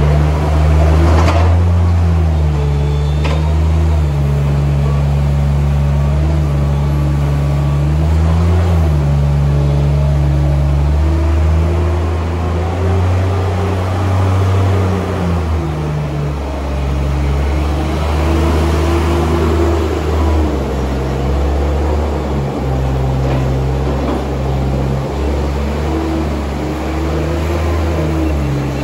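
A compact loader's engine runs steadily. Its pitch rises and falls every few seconds as the machine drives and works its bucket. A couple of brief knocks come about a second and three seconds in.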